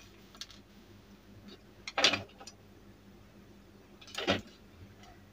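Small plastic remote-control parts and metal battery springs being handled and set down on a table: a few light clicks and two louder short clatters, about two seconds in and again after four seconds.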